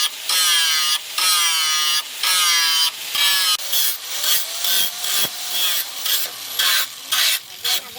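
A hand file scraping a steel knife blade forged from rebar, in repeated strokes with a squealing ring. The strokes are longer, about one a second, in the first half, then shorter and quicker.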